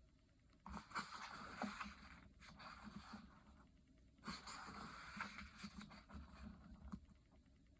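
Faint rustling and soft scraping of paper as coloring book pages are handled and turned, in a few separate stretches with small clicks.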